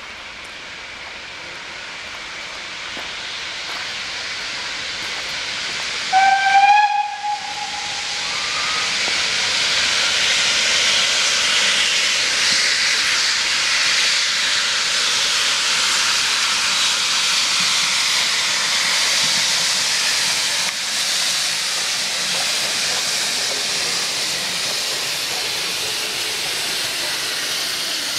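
Steam locomotives approaching with a steady hiss of escaping steam that grows louder over the first ten seconds. A locomotive's steam whistle blows once, about six seconds in, for a second and a half.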